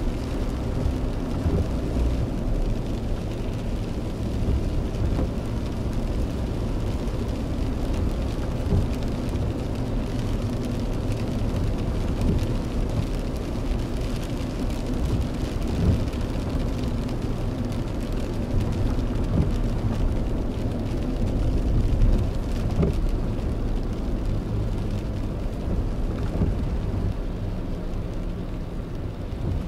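Steady low rumble of a car's engine and its tyres on a wet road, heard from inside the cabin, with rain hitting the windshield in scattered small ticks.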